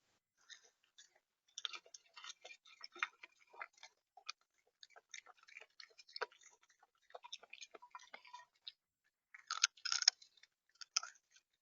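Irregular clicking and tapping of a bird pecking seed on the feeder close to the microphone, in quick uneven runs with a louder cluster of taps near the end.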